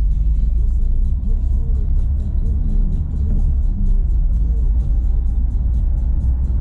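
Renault Sandero Stepway 2 driving over a dirt road: a steady low rumble of tyres and suspension on the rough surface.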